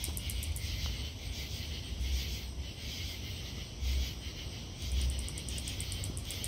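Greater anglewing katydid clicking: a run of high, evenly spaced ticks, about ten a second, that stops just after the start and resumes about five seconds in. Underneath run a steady lower-pitched insect chorus and an uneven low rumble.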